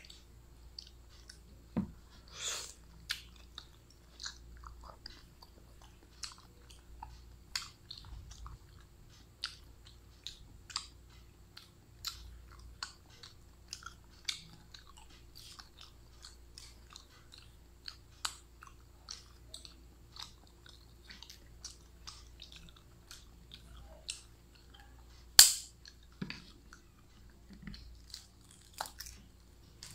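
Close-up mouth sounds of a person chewing balut, a boiled fertilized duck egg: a steady run of small clicks and smacks. One sharp knock about 25 seconds in is the loudest sound.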